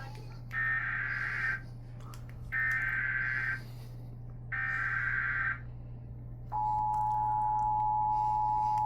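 Emergency Alert System SAME header: three bursts of buzzing digital data tones, each about a second long and two seconds apart, encoding the alert (here a severe thunderstorm warning). About six and a half seconds in, the steady two-tone EAS attention signal starts and holds, the alarm that precedes the spoken warning, over a faint steady low hum.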